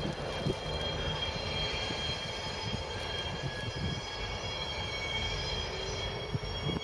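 Irish Rail 071 class diesel locomotive's EMD two-stroke V12 running steadily as it moves slowly over the yard points. Its wheels give a steady high-pitched squeal on the curved track.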